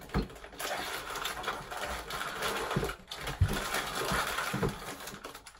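Continuous rustling and crinkling from a hand rummaging inside a Mott's snack box, with a few soft knocks of the box being handled.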